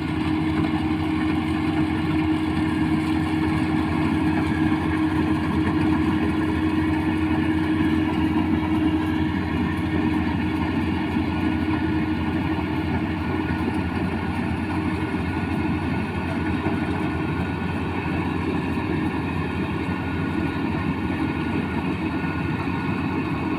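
Rice combine harvester's engine and machinery running steadily at constant speed, a continuous even hum with no change in pitch.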